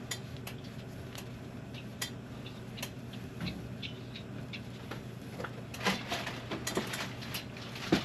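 Wire being pulled and handled among wooden floor joists: scattered light clicks and taps, then a burst of scraping and rustling about six seconds in, over a steady low hum.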